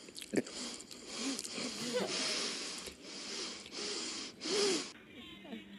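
Breathy, stifled laughter: a run of snorting, wheezing bursts of air, about one a second, from someone trying to hold a laugh in.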